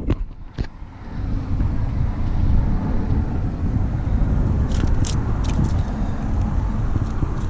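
Wind buffeting an action camera's microphone, which has no wind guard: a loud, steady low rumble. A few short sharp clicks and knocks come about five seconds in.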